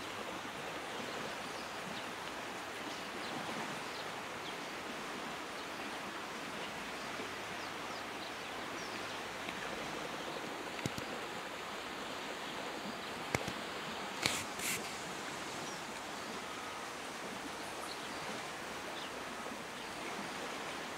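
Steady, even outdoor background hiss of open bush, with a handful of short sharp clicks or snaps a little past the middle.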